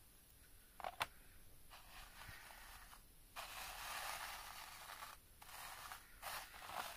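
Fingers brushing and spreading fine shredded cereal crumbs over a plastic LEGO baseplate: a faint gritty scraping rustle in two long strokes, then shorter ones near the end. It is preceded by two light clicks about a second in.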